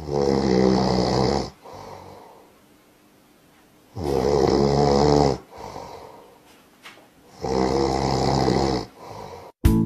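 Sleeping tabby kitten snoring: three loud, rattling snores about every three and a half seconds, each followed by a softer breath out.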